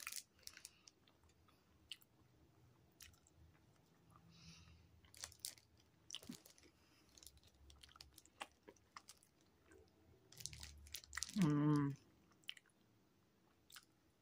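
Quiet close-up chewing and wet mouth clicks from a person eating soft bread and a beef-and-bean burrito. About three-quarters of the way through comes a short hummed "mmm", the loudest sound.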